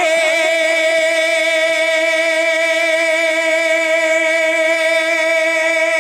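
A man's voice holding one long sung note in a naat recitation, steady in pitch after a slight waver at the start.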